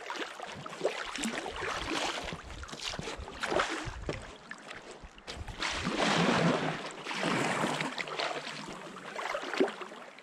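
Paddle strokes and water splashing and swishing around a stand-up paddleboard, coming in swells every second or two, the loudest about six seconds in.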